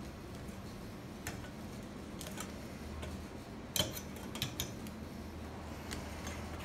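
A few light, sharp clicks and taps of small hard objects being handled, the loudest about four seconds in and two quicker ones just after, over a faint steady low hum.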